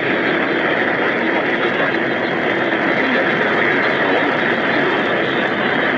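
Steady radio static hiss with no voice, loud and unbroken throughout.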